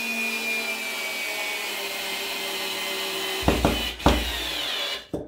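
Parkside PSSA 4 B2 4 V cordless screwdriver's motor and gearbox whirring as it drives a wood screw into a wooden block, one tone in the whine sliding down in pitch. A few knocks come about three and a half seconds in, and the motor stops near the end.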